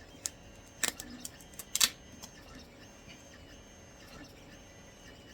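Cured resin supports snapping and cracking as the raft is broken away from a resin 3D print: two sharp snaps about one and two seconds in, with a few fainter clicks around them.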